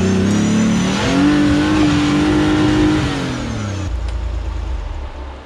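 Nissan-based Pathmaker rock-crawler's engine revving hard as the rig is driven at a slippery rock climb. The pitch climbs over the first second, holds high for about two seconds, then falls away and settles to a low steady run about four seconds in.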